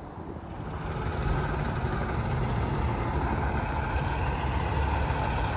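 Semi truck on the interstate coming closer, its engine and tyre noise growing louder over the first second or so, then holding as a steady, heavy rumble.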